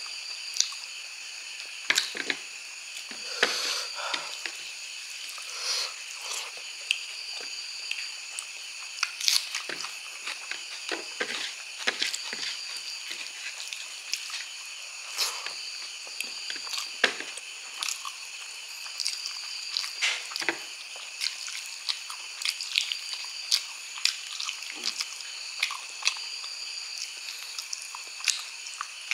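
A person chewing and biting on pork trotter and rice eaten by hand, with short irregular clicks and smacks of mouth and teeth. Under it runs a steady high-pitched background hum.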